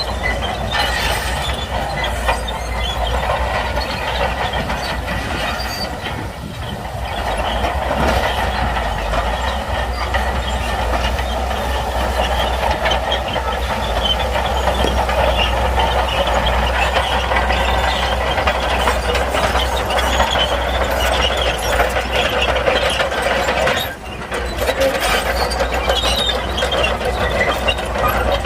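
Shantui crawler bulldozer running hard with a deep engine rumble and the steady clatter and grinding of its steel tracks over stone. The noise dips briefly twice.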